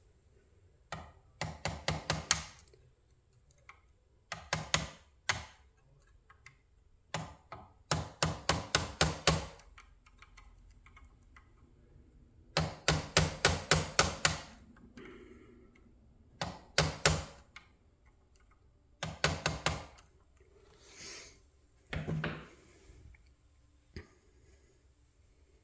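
A pin being tapped into the boom cylinder mount of an IMC Demag AC700 model crane: short runs of quick, sharp taps, several a second, about eight runs in all with pauses between them.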